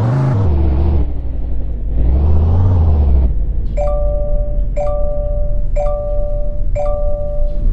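An RC car's sound module plays a Subaru Impreza engine sample revving twice, each rev rising and falling in pitch. From about halfway in, an electronic chime sounds about once a second.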